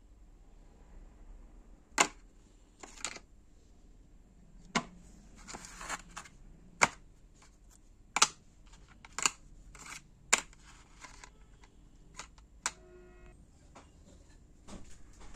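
A dozen or so sharp, irregularly spaced clicks and knocks of small hard parts being handled, with a brief rustle a little before the middle.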